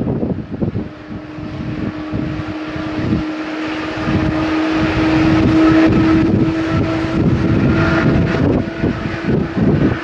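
Boeing 737-800 jet engines at climb power: a steady droning tone over a rushing noise, growing louder over the first few seconds. Gusty wind buffets the microphone.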